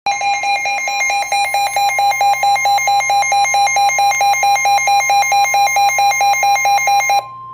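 Midland WR-120 NOAA weather radio's alarm beeping rapidly and loudly, about five beeps a second, over a steady higher tone, signalling a received flash flood warning. The beeping cuts off suddenly near the end, leaving the steady tone alone for a moment.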